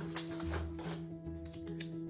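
Background music with long held notes and a soft low pulse, with a few faint clicks and rustles of plastic pump parts and packaging being handled.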